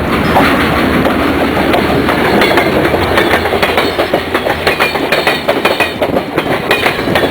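A train rolling past, its wheels clacking over the rail joints over a steady rumble, with the clacks coming thicker and louder in the second half.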